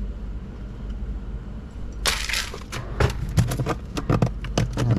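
Hard pieces being scraped and knocked out of a freezer compartment: a brief scrape about two seconds in, then a quick run of sharp knocks and clatters, over a steady low hum.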